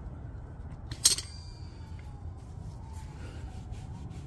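A single sharp metallic clink about a second in, ringing briefly, over a low steady rumble.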